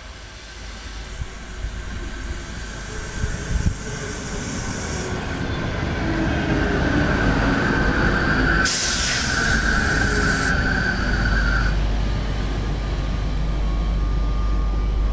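Renfe electric passenger train coming into the station and running along the platform, growing steadily louder, with a steady high-pitched wheel squeal through the middle. A loud burst of hiss comes about nine seconds in, and a deep rumble follows as the cars pass close by.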